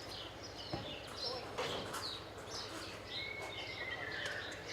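Small birds chirping over and over in short, falling chirps, with one longer, slowly falling whistled note a little past three seconds in, over a steady low background hum.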